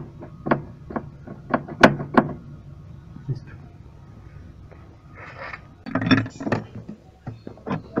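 Scattered sharp clicks and knocks of hands handling washing-machine parts, with a short rustle about five seconds in and a denser cluster of knocks around six seconds.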